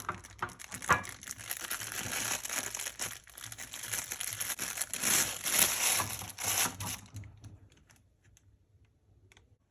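Watch packaging crinkling and rustling as it is handled, with a few sharp clicks, stopping about seven seconds in.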